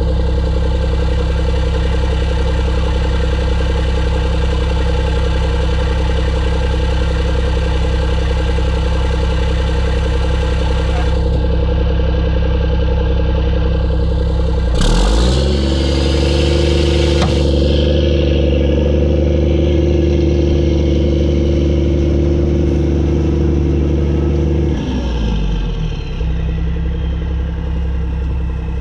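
Mack E7 inline-six turbo diesel in a Mack CH612 truck running steadily. About halfway through the revs jump up with a short burst of hiss, hold for about ten seconds, then drop back. The turbo whistle rises as the revs come up and falls away as it spools down near the end.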